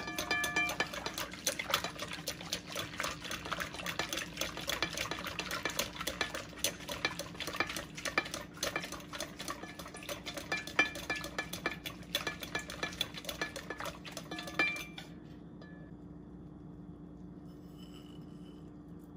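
Wire whisk beating an egg mixture in a glass bowl: fast, dense clicking and scraping of the wires against the glass, with a few ringing knocks on the bowl at the start. The whisking stops about 15 seconds in, leaving only a faint steady hum.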